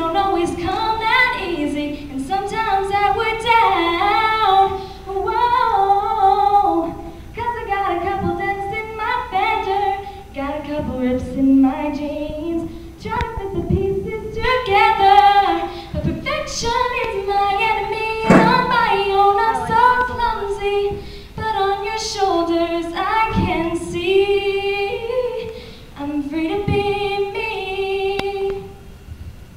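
A girl singing a solo into a handheld microphone, in phrases a few seconds long with short breaks for breath between.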